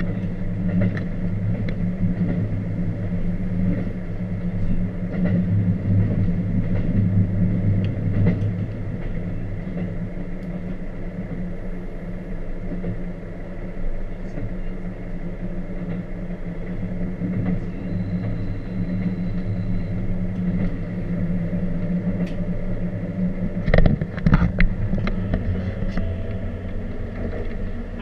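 Train running along the line, heard from inside the carriage: a steady low hum with wheel-on-rail rumble and clatter, and a short burst of louder knocks about 24 seconds in.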